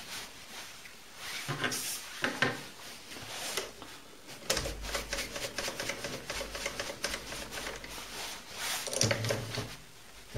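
Mini lathe carriage being hand-cranked toward the chuck: a run of small irregular mechanical clicks and rattles, with a low steady hum joining about four seconds in.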